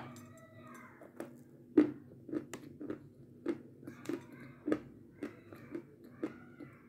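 Close-miked mouth sounds of eating a white sweet: a sharp bite at the start, then crunchy chewing, about two crisp chews a second.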